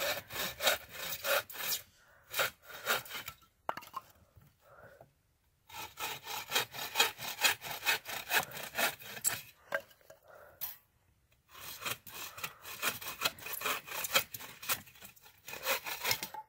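Agawa Boreal 21 folding bow saw cutting a dead wooden pole: quick back-and-forth strokes, about two to three a second, in three runs with short pauses between. The blade is quite aggressive and bites fast.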